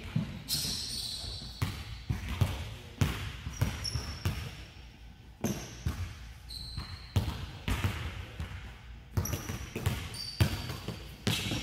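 A basketball bouncing on a hardwood gym floor, with uneven thuds that echo in the large hall. Short high squeaks of sneakers on the floor come between the bounces.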